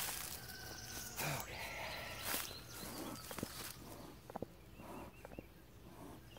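Rustling of clothing close to the microphone and a few light clicks and knocks as someone handles an open wooden beehive, with a few faint chirps late on.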